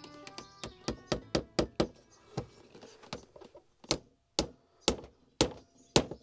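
A steel-headed hammer striking the wooden gunwale of a birch bark canoe. It starts with a quick run of about six sharp knocks, then settles into steadier blows about two a second.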